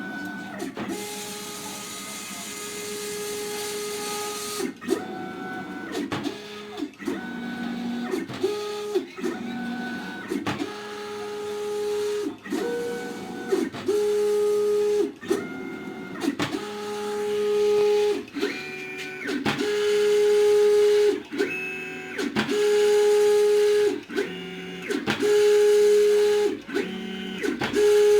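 Stepper motors of a CNC pen plotter driving the pen through a drawing: a series of steady whining tones, each a second or two long, changing pitch from one move to the next, with short clicks between moves.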